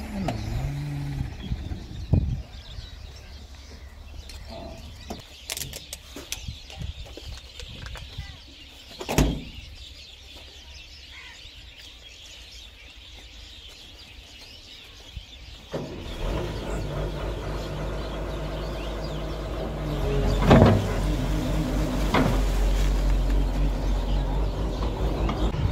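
Hyundai tracked excavator's diesel engine running steadily under load from about two-thirds of the way in, with a loud knock a few seconds later as it works refuse. Before that, scattered knocks and bird calls over quieter outdoor sound, with one sharp bang about a third of the way in.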